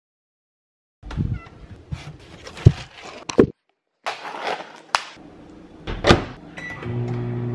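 A paper microwavable mac and cheese cup being handled on a counter: clicks and knocks of the cup, then crinkling as its foil lid is peeled back, with a sharp knock about six seconds in. A low steady hum starts near the end.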